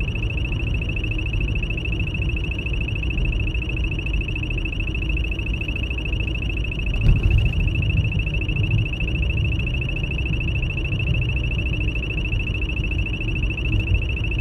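Radar detector giving a steady, high-pitched alert tone that runs on unbroken: the alarm for a detected AMATA speed-camera radar. Under it is the low rumble of a car cabin, with a brief thump about seven seconds in.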